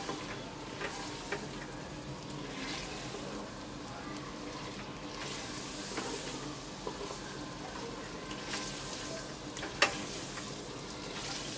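Red meat and ground spices sizzling in hot oil in a pressure cooker pot while a silicone spatula stirs them, with scattered light scrapes and taps and one sharper tap near the end. This is the bhuna stage, frying the masala with the meat to cook out the spices' raw smell.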